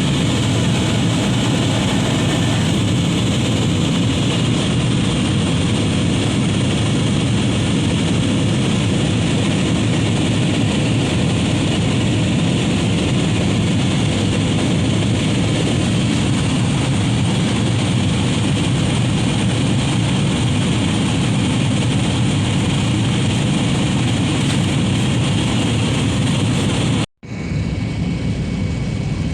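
Airliner cabin noise: a loud, steady roar of engines and airflow heard from inside the passenger cabin. It cuts out for an instant near the end and comes back slightly quieter.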